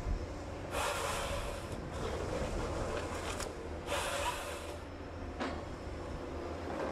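Komatsu PC200F excavator-based harvester with a Komatsu 378E head processing eucalyptus. Its engine runs with a steady low drone, and two bursts of noise, each about a second long, come about a second in and about four seconds in, with shorter ones between, as the head works a stem.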